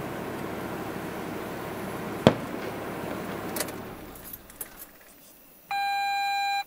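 A single sharp firework bang a little over two seconds in, over a steady hiss that drops away about four seconds in. Near the end a loud electronic beep holds one steady tone for about a second.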